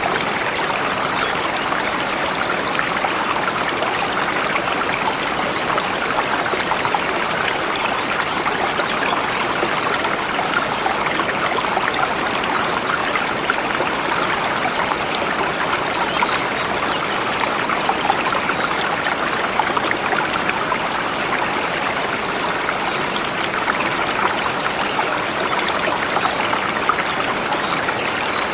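A forest river flowing over smooth rocks: a steady, even rush of water.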